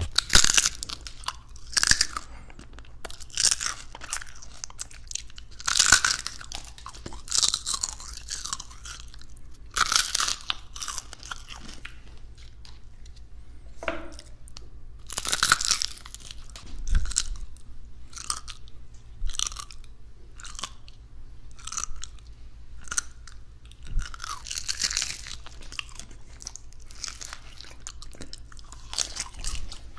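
Crispy fried chicken being bitten and chewed right up against a binaural microphone: loud crackly crunches of the breaded skin every second or two, with softer chewing in between.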